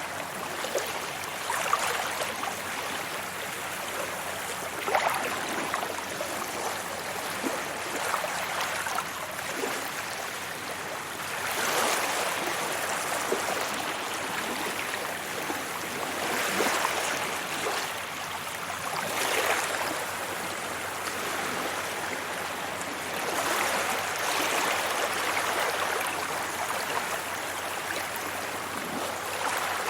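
Sea waves washing onto a beach: a steady hiss of surf that swells and ebbs several times as waves break and run up the shore.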